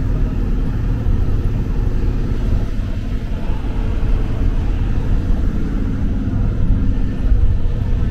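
Shuttle bus engine running steadily as the bus drives along, a low drone with road noise, heard from inside the bus.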